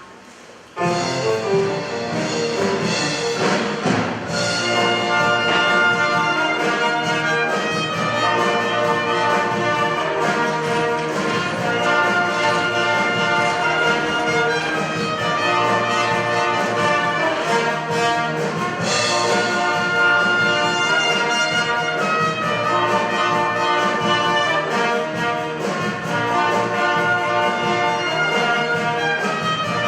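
Orchestral music led by brass, starting about a second in after a short pause.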